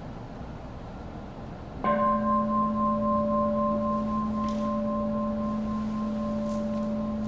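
A Buddhist bowl bell struck once, ringing on in a long, slowly fading sustain, with its highest tone wavering slowly. It marks the close of the silent meditation.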